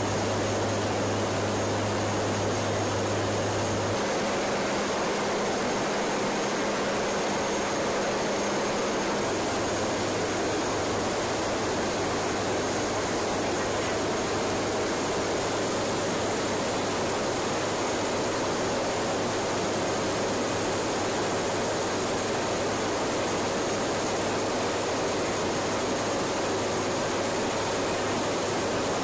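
Steady cabin noise inside a WC-130J Hercules turboprop in flight: an even rush of engine and airflow noise with a low steady hum underneath.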